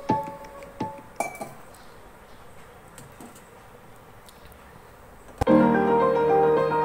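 A few metal clinks of a cooking pot and lid in the first second and a half, then quiet. About five and a half seconds in, background piano music starts.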